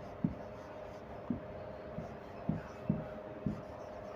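Marker pen writing on a whiteboard: about five short, separate strokes, over a faint steady hum.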